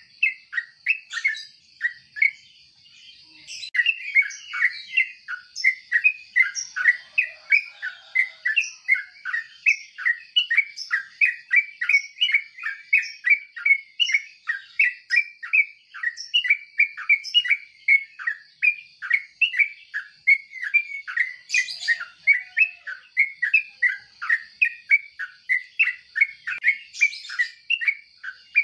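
Yellow-vented bulbul chirping in a rapid, continuous run of short notes, about three a second, with a brief pause about two seconds in.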